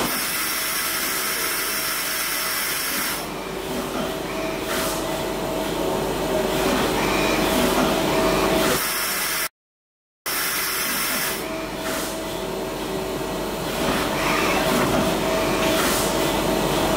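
Citizen Cincom CNC lathe running: a steady hissing machine noise over a constant hum. The hiss eases about three seconds in and comes back later. The sound cuts out briefly about nine and a half seconds in.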